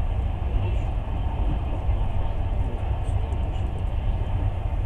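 Moving train heard from on board: a steady low rumble of wheels on rails.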